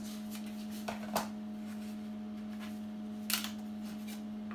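Dry lasagna sheet being snapped to size by hand: two short sharp cracks about a second in and a louder crack a little past three seconds, over a steady low hum.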